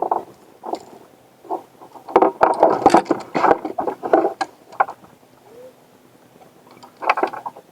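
Clatter of knocks and scrapes on the small plastic boat while a freshly caught bass is handled, busiest from about two seconds in to about five seconds, with a short burst near the end.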